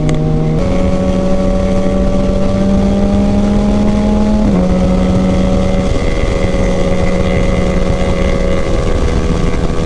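Motorcycle engine running at road speed under heavy wind rush on the microphone. Its pitch climbs slowly for a few seconds, drops suddenly about four and a half seconds in, then holds steady.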